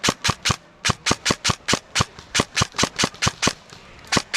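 Airsoft gun firing rapid single shots, about five a second, in two strings with a short break after the first half-second and a pause near the end.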